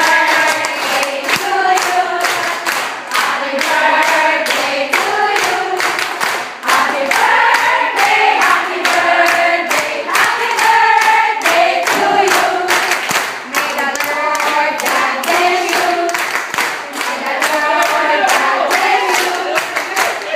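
A large group of people singing together while clapping their hands in a steady beat, the clapping loud and regular under the voices.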